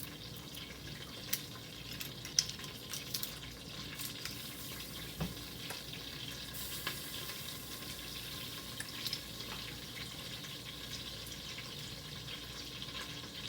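Butter melting with a faint, steady sizzle in an electric multi-cooker on its sear setting. A few light clicks and knocks come in the first few seconds.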